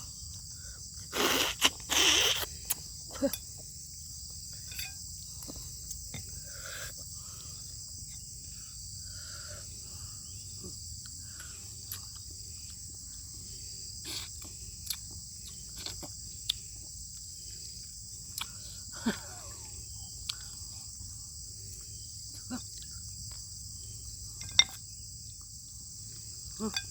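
A person eating beef bone soup: two loud slurps about a second in, sucking at the bone marrow, then scattered smacks and clicks of chewing. Behind it runs the steady high chirring of crickets.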